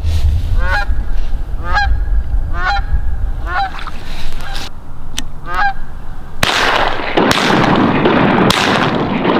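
A goose honking, about six calls roughly once a second. About two-thirds of the way in, a sudden loud burst of noise takes over, with a second sharp onset near the end.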